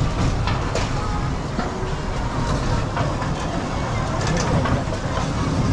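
Amusement-ride train rolling along its rail track: a steady rumble with a few light clicks.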